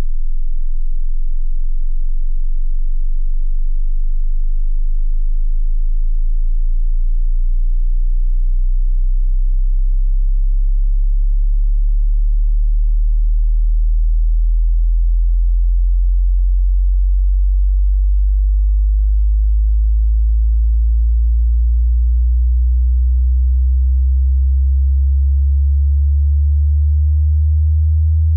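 Hearing-test sine-wave tone: a single loud, pure bass tone that rises slowly and steadily in pitch, starting as a deep hum below 50 Hz and climbing to around 100 Hz.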